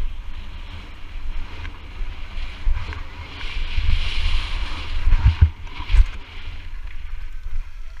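Wind buffeting an action camera's microphone as a mountain bike runs down a dirt trail, with tyre noise over loose dirt. A louder rushing hiss builds between about three and five seconds in, then come a few heavy thumps as the bike jolts over bumps.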